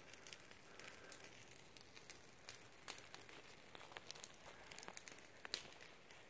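Near silence, with faint scattered crackles and rustling of footsteps on dry twigs and needle litter on the forest floor.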